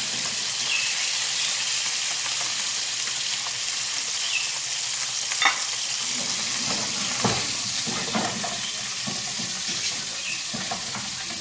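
Galunggong (round scad) fish frying in hot oil in a pan, a steady sizzle, with a few sharp clicks of tongs against the pan, the loudest about five and a half seconds in.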